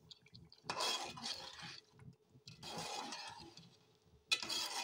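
Metal spoon stirring thick curry gravy in an aluminium pot, three strokes of about a second each.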